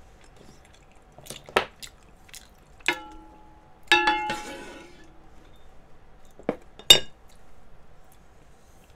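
A ladle and chopsticks clink and knock against metal pots and a pan. There are a few light clicks, then two ringing clinks about a second apart, the second louder and ringing on for about a second, and two sharp knocks near the end.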